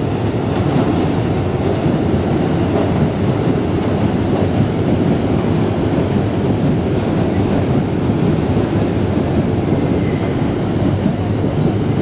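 Train running past at close range: a loud, steady noise of wheels on rails with some clatter, even throughout.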